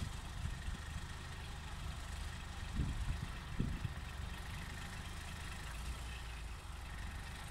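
Heavy articulated lorry with a curtain-side semi-trailer moving slowly past, its diesel engine giving a steady low rumble. Two short low thumps come about three seconds in.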